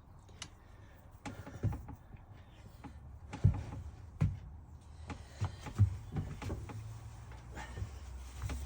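Scattered metal clunks and knocks as the tailstock of a mini lathe is slid back along the bed and tooling is handled, with a low hum coming in about halfway through.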